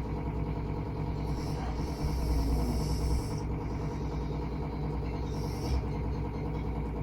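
A sleeping person breathing slowly and snoring lightly, a breath every few seconds, over a steady low hum.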